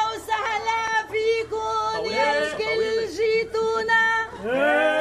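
A woman singing solo and unaccompanied in the manner of a traditional wedding chant, with long held notes broken by ornamented turns and slides.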